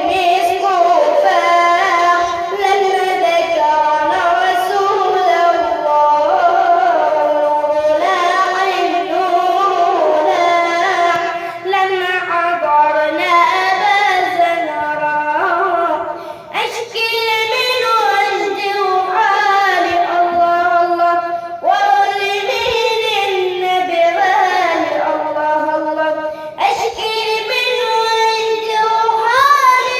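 A solo voice singing an Egyptian religious nasheed in praise of the Prophet in Arabic. The long sung phrases are heavily ornamented with sliding, wavering melodic runs, each lasting about five seconds with short breaths between them.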